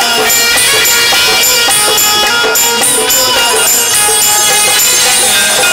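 Instrumental interlude of a Maithili stage song played by the live band: a sustained melody over a steady beat with short, regular high strikes.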